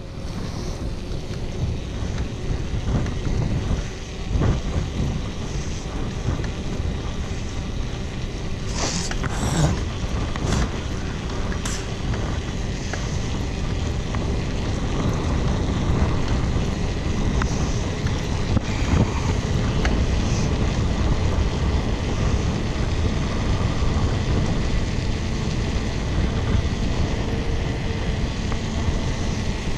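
Wind buffeting the camera microphone and tyre noise on asphalt as a mountain bike rolls downhill at speed, with a few sharp knocks about nine to twelve seconds in.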